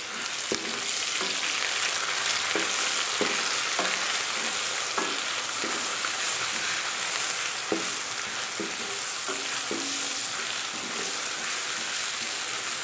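Ginger-garlic paste and browned sliced onions sizzling in hot oil in an aluminium kadai, stirred with a wooden spoon that knocks against the pan every second or so.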